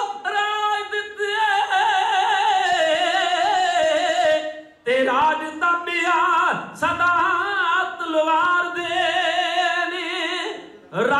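Male voices singing kavishri, the Punjabi ballad style sung without instruments, in long held notes with vibrato through a microphone. The singing breaks off for a moment about halfway through, then goes on.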